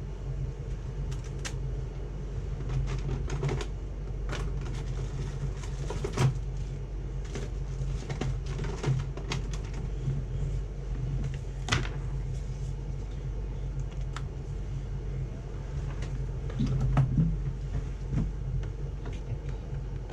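Rummaging through small objects: scattered clicks, taps and knocks as things are picked up and moved, over a steady low hum.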